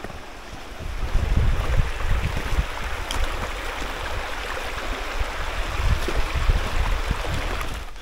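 Shallow, rocky river running over stones: a steady rushing hiss of flowing water, with an uneven low rumble of wind buffeting the microphone underneath.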